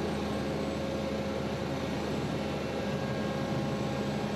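Engine of a multi-axle heavy-load transporter running steadily as it drives slowly with a ship hull section on board, a constant hum with a few held low tones.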